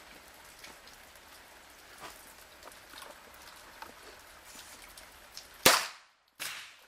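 A single revolver shot about two thirds of the way in: one sharp crack, after which the sound cuts out for a moment, then a shorter burst that dies away.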